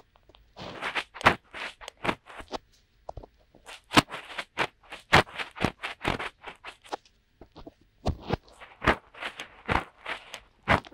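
Fingertips rubbing and scratching inside the ear of a binaural dummy-ear microphone: close, irregular scratchy rustles, about one or two a second, with a quieter stretch a little past the middle.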